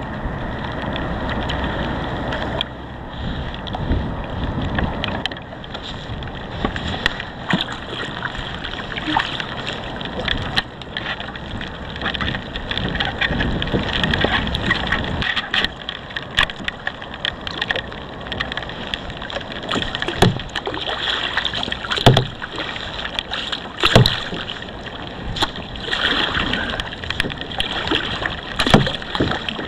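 Wind on the microphone and water sloshing against a fishing kayak's hull, with many scattered knocks and clicks and a few louder thumps in the second half.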